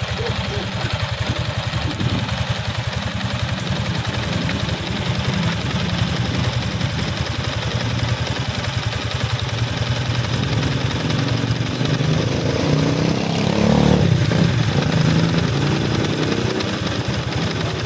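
Motorcycle engine idling steadily with an even, fast pulse, swelling louder for a moment about twelve to fourteen seconds in.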